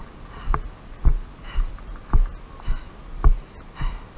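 Walking footsteps: dull, even thumps about two a second.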